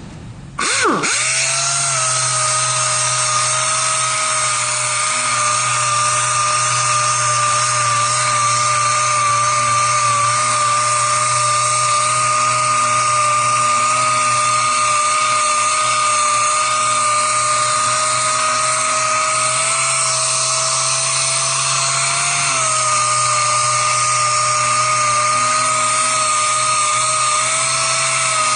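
A power grinder fitted with a sanding disc spins up about a second in, then runs with a steady high-pitched whine over a hiss. Its pitch creeps up slightly and drops back a little past two-thirds of the way through.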